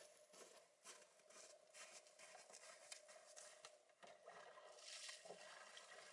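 Faint crunching footsteps in snow, irregular steps at close range, with a few light knocks.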